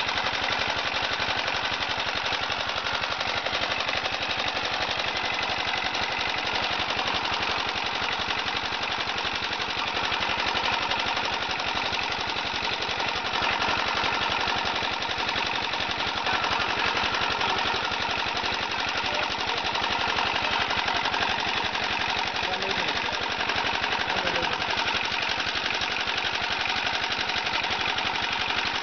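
Motor-driven screw extruder pressing charcoal paste into briquette sticks, running with a steady, rapid clatter.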